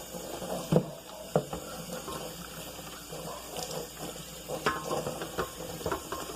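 Water running from a tap into a sink, with several sharp knocks of items being handled in it.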